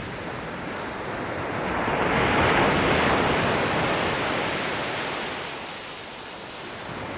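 A rushing noise that swells over the first two or three seconds and then slowly dies away.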